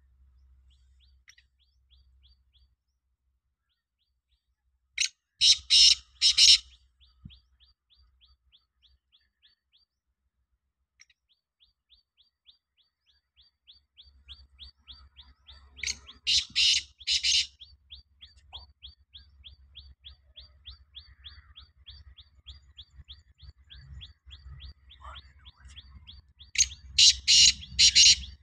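Black francolin calling three times, about ten seconds apart, each call a loud grating phrase of three or four harsh notes. A faint, fast ticking runs in the background between the calls.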